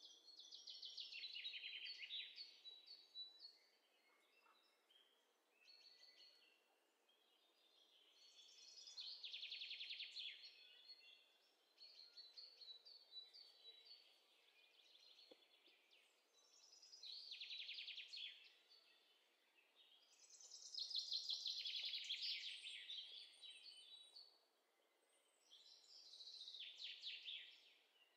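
Recorded songbird chirping as a background sound effect: five trilled phrases of about two seconds each, each falling in pitch, with softer chirps between, faint overall.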